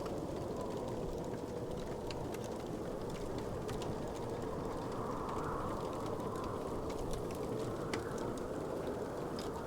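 Wood fire crackling: scattered sharp pops and snaps over a steady low rushing noise.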